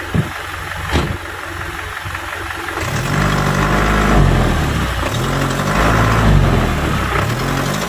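Truck engine idling, then from about three seconds in revving up and down again and again while the truck is bogged down in wet mud. A single dull knock about a second in.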